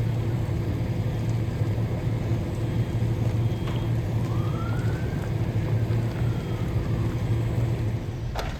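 A vehicle engine runs with a steady low drone. A faint tone rises and falls once in the middle, and there is a short sharp knock just before the end.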